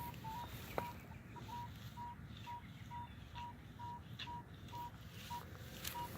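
A metal detector giving short, even beeps of one pitch, about two a second, as it signals a buried target. A light click sounds about a second in.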